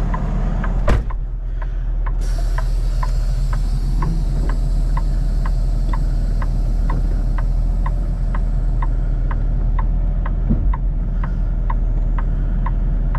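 Semi truck's diesel engine idling, heard from inside the cab, with a flasher relay clicking steadily about twice a second. About a second in comes a short sharp air-brake burst, and then a hiss of air that fades away over several seconds.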